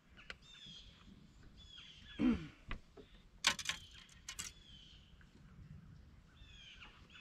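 A bird calling over and over with short, falling notes, about one a second. A brief low sound comes about two seconds in, and a few sharp knocks about three and a half seconds in.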